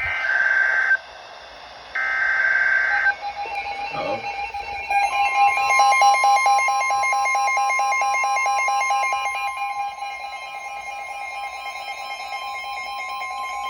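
Emergency Alert System signal: two roughly one-second bursts of shrill data-header tones with a short gap between them, then the steady two-tone attention alarm, held for about ten seconds.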